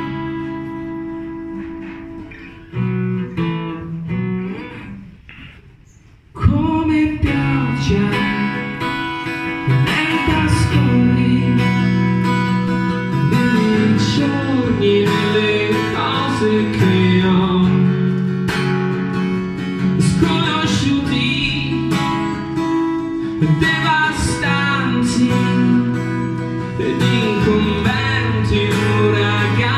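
A man singing a song to his own acoustic guitar, played live. The guitar plays alone and more softly for about the first six seconds, then the voice comes in and the playing gets louder and fuller.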